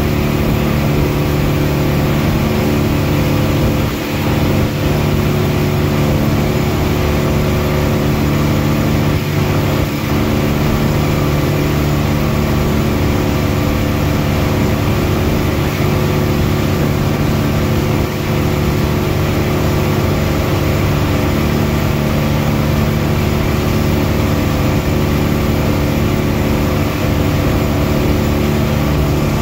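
A passenger boat's engine running steadily at an even pitch, under a constant hiss.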